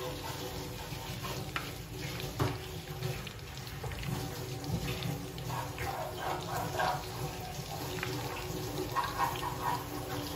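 Chicken bites deep frying in hot oil in a kadhai: a steady bubbling sizzle with scattered crackles as fresh battered pieces are dropped in one at a time.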